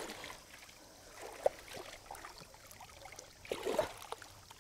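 Shallow running water in a stone-lined stream pool, with small irregular splashes and sloshes as hands grope through it for fish; one short sharp knock about a second and a half in, and a cluster of louder splashes near the end.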